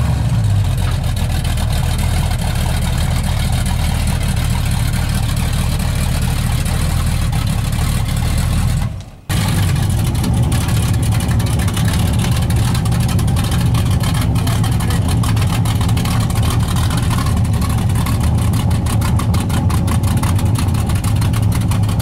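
Cammed small-block Chevy V8 in a 1983 Chevy C10, breathing through long-tube headers and short 12-inch glasspack mufflers with turn-downs, idling with a lopey cam rhythm. The sound breaks off briefly about nine seconds in, then the same steady idle resumes.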